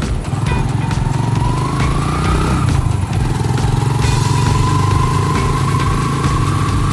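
Motorcycle engine of a tricycle running under way, heard from inside the sidecar, with a high whine that rises in pitch, drops back about two and a half seconds in, then climbs again.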